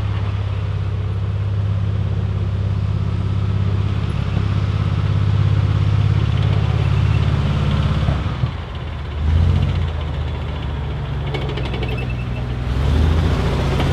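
Large diesel engine of a tracked armoured vehicle running with a steady low rumble. It drops off about eight seconds in, then revs up twice, with a short run of clicks late on.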